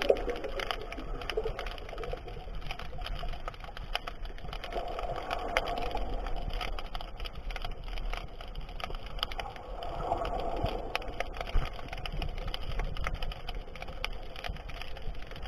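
Underwater ambience picked up by a submerged camera: a steady wash of water noise with many scattered crackling clicks, and a couple of muffled swells of sound.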